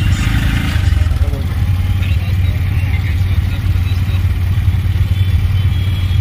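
Auto-rickshaw engine running with a steady low drone, heard from inside the passenger cab, mixed with the engines of the surrounding traffic.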